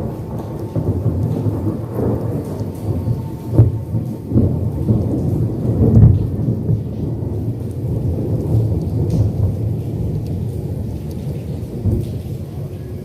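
Rolling thunder during a lightning storm: a low, continuous rumble that swells several times, loudest about six seconds in, then slowly eases off.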